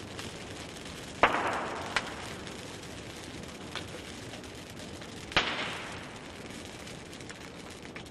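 Dry Christmas tree burning fiercely: a steady rush of flame with two loud, sharp cracks, about a second in and again about five seconds in, and a few smaller snaps between.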